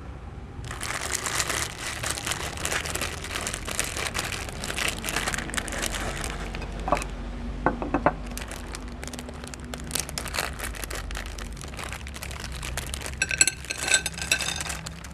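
Hard watermelon candy crackling and crunching as a meat grinder crushes it, over a steady low hum. The crackle is dense for the first several seconds, then thins out. A brief squeaky ringing tone sounds near the end.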